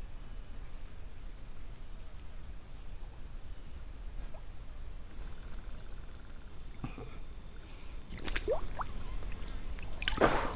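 A steady, high-pitched chorus of forest insects, with a thin, even whine running beneath it. Near the end, water sloshes and splashes loudly.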